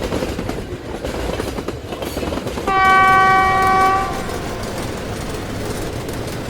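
An electric train running on the track, with a single horn blast of about a second near the middle.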